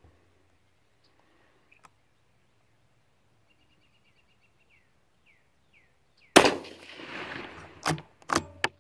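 A single rifle shot from a scoped bolt-action rifle about two-thirds of the way in, loud and trailing off over a second or so, followed by several sharp metallic clacks as the bolt is worked. Before the shot a bird chirps faintly.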